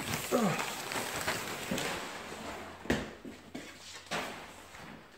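Rustling and handling noise with a few light knocks, fading away toward the end.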